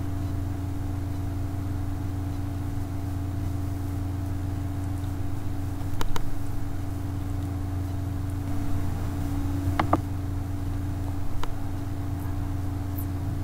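Steady low hum of room or recording-equipment noise, with a few short soft clicks about halfway through and a couple more near the end.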